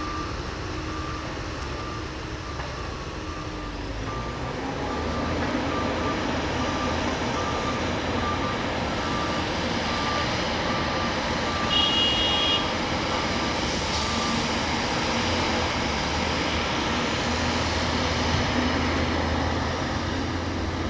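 Backhoe loader's diesel engine running, with its reversing alarm beeping at about one and a half beeps a second; the beeping stops about two-thirds of the way through while the engine runs on. A short high-pitched tone sounds about twelve seconds in.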